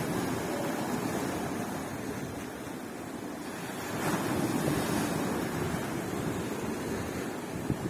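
Sea waves breaking and washing on a beach, a steady surf that swells louder about four seconds in.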